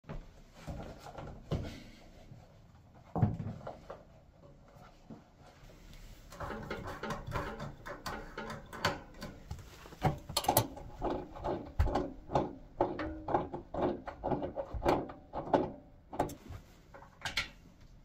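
Handling noises from plumbing work under a radiator: knocks as an orange plastic plumb tub is set in place, a sharp knock about three seconds in, then a long run of rapid clicks and rattles as the radiator valve spindles are turned shut with a small metal tool.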